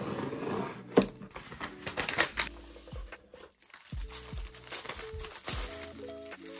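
Plastic packaging crinkling and rustling as a cardboard box is opened and a plastic-bagged phone case box is pulled out, with a few sharp clicks. Soft background music grows stronger about four seconds in.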